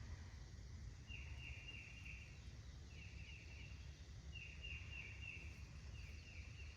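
Faint birdsong: short runs of four or five quick falling notes, repeated every second or two, over a low steady rumble.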